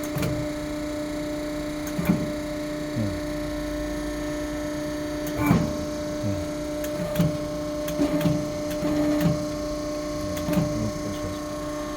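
Hydraulic crimping machine's power unit running with a steady electric hum, overlaid by scattered light knocks and brief squeaky scrapes from handling the crimped tube in the machine.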